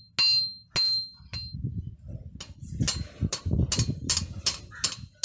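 Ball-peen hammer striking the steel rose's petals on a round steel stake. The first three blows ring out with a high metallic ring. After about two seconds a quicker run of duller blows follows, about two or three a second, with a low rumble beneath.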